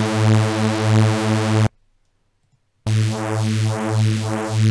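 Phase Plant software synth playing a held sawtooth bass note from two oscillators, one detuned 36 cents down, so the buzzy tone pulses with a slow phasing beat. It cuts off suddenly a little under two seconds in. After about a second's gap the note plays again, now with a whooshing sweep rising and falling in the treble roughly every half second.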